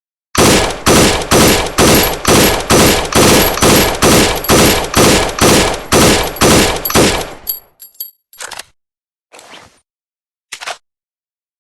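M4 carbine firing a rapid string of about twenty shots, roughly three a second, for about seven seconds. A few short, fainter clicks and clinks follow.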